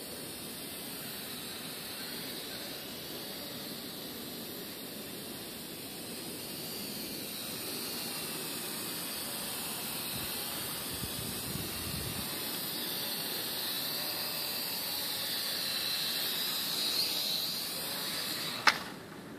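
WLtoys V959 quadcopter's four small brushed motors and propellers whining and hissing in flight, the pitch wavering up and down as the throttle changes and growing louder as it comes closer. Near the end a sharp knock as it comes down on the grass, after which the motor sound drops away.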